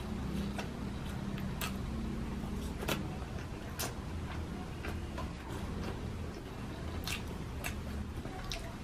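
A person eating, with about half a dozen sharp, irregularly spaced mouth clicks and bites over a steady low hum.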